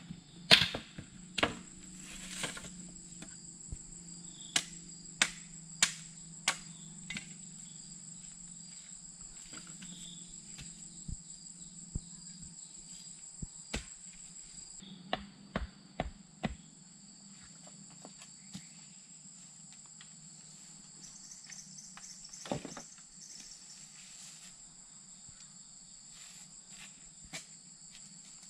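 Insects trilling steadily in two high continuous tones, with scattered sharp wooden knocks and taps from bamboo poles being cut and handled, bunched in the first few seconds and again around the middle, with one more knock about three-quarters of the way in.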